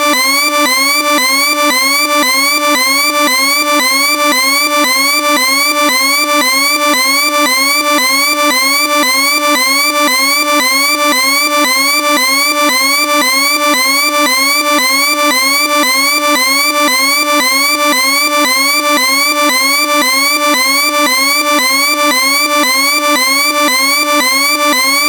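Electronic warning alarm siren sounding continuously: a fast, unbroken series of short rising sweeps, several a second, at a steady level.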